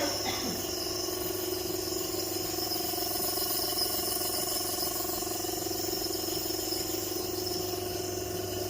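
Nebulizer's compressor motor running with a steady hum during a treatment.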